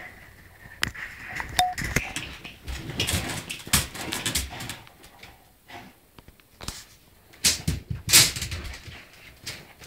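A bull terrier scrabbling and rustling in a wicker basket bed and its cushion, with irregular scratches and knocks.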